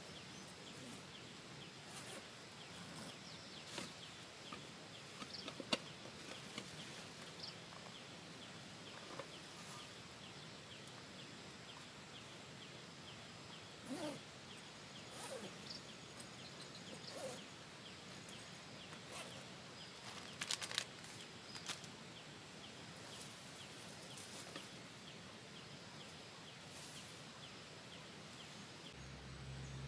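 Faint outdoor ambience with scattered rustling and clicks of a backpack and gear being handled, and faint bird calls.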